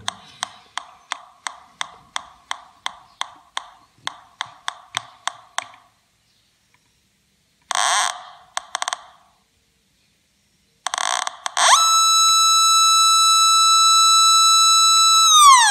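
Home-built Pi Polones pulse-induction metal detector's audio output, with a TL081 op-amp fitted: regular electronic clicks about three a second for some six seconds, a short buzz, then a steady high electronic tone that drops in pitch near the end.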